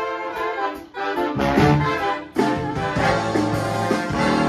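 Big band of saxophones, trumpets and trombones playing swing jazz live, with short breaks between ensemble phrases about a second in and again just past two seconds.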